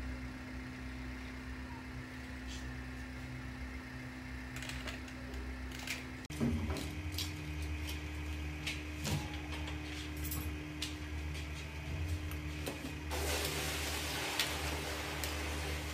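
Water simmering in a pot on a gas stove over a steady low hum; after a cut about six seconds in, tongs click and knock as crabs are turned in the boiling water, and the bubbling grows louder near the end.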